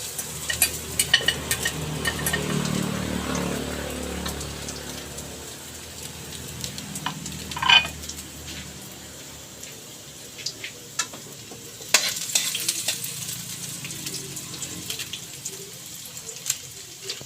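Chopped garlic sizzling in hot cooking oil in a pan, with a spatula clicking and scraping against the pan as it is stirred. There is one louder scrape about eight seconds in.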